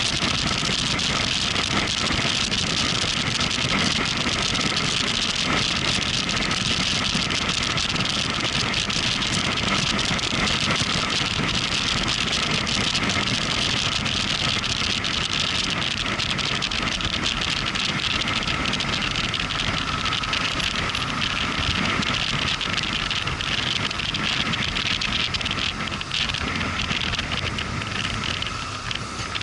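Motorcycle engine running under way, mixed with steady wind and road noise; the sound falls away over the last few seconds.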